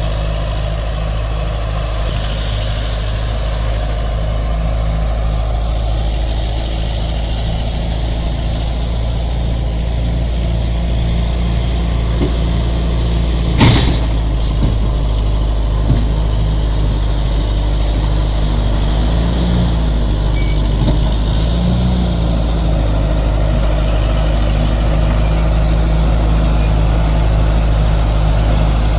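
Heavy diesel engine of earth-moving equipment running steadily. About midway there is one sharp knock, followed by a couple of fainter ones.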